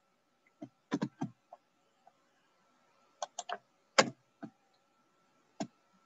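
Computer keyboard keystrokes: scattered clicks in short irregular clusters, with a faint steady hum underneath.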